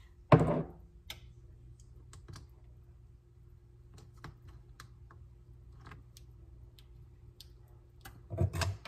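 A sharp knock about a second in, then scattered light clicks and taps, and a few louder knocks near the end, over a faint steady hum: small kitchen items being picked up and set down on a counter while tidying.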